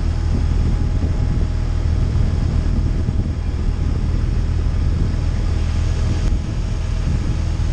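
Touring motorcycle's engine running at a steady cruise, a low steady drone with wind noise over the microphone.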